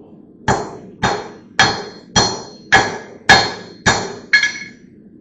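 Hand hammer striking metal in a blacksmith's shop: eight steady blows about two a second, each with a bright metallic ring, the last one near the end.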